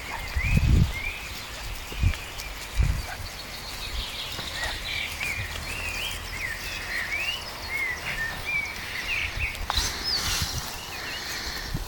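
Small birds chirping and singing repeatedly in the background over a low outdoor rumble, with a few heavy low thuds on the microphone in the first three seconds.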